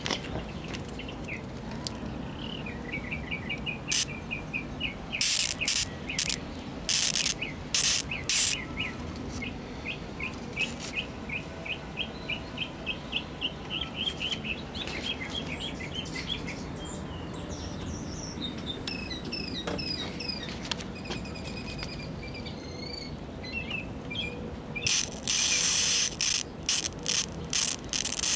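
High-pitched steady whine from the Hotpoint 14S202 black-and-white TV's flyback transformer and horizontal output circuit, the sign that the horizontal stage is running and making high voltage; it drops out for several seconds midway, then comes back. Birds chirp over it, and short loud bursts of hiss come about a quarter of the way in and again near the end.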